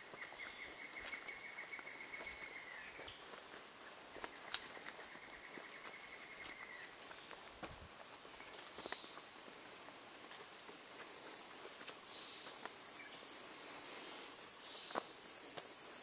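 Forest insect chorus: a steady high-pitched buzz that grows louder from about halfway through. Near the start, two rapid pulsed trills of about two and a half seconds each. Footsteps on a paved trail click here and there.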